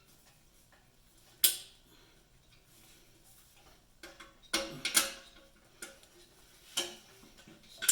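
Sharp metallic clinks and clanks of hand tools and engine parts being handled: one about a second and a half in, a cluster of several around five seconds, and two more near the end.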